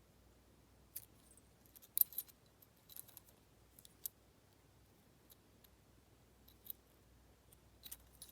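A Lockwood padlock and its key being handled, giving a few scattered small metallic clicks and light rattles, the loudest about two seconds in.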